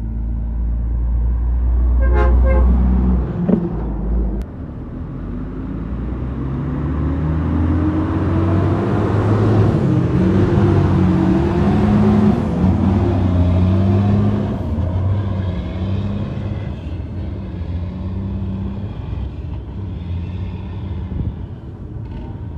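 A vehicle horn gives a short toot about two seconds in. Then the engine of a heavy truck passes close by, swelling to its loudest around the middle and fading away.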